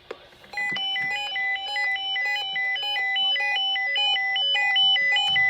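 Electronic ringtone-style melody of quick beeping notes stepping up and down between a few pitches. It starts about half a second in.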